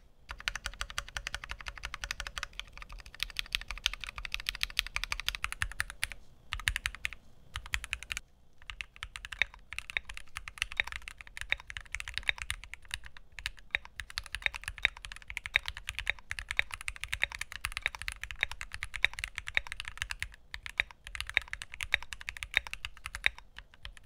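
Fast typing on a Keychron Q9, a 40% mechanical keyboard with an aluminium case, metal plate and double gasket mount, at about 95 words a minute. It is a dense, even run of keystroke clicks with a few brief pauses, and it stops just before the end.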